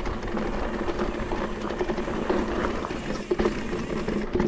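Mountain bike rolling over a dirt trail: a steady rush of tyre noise with scattered knocks and rattles from the bike.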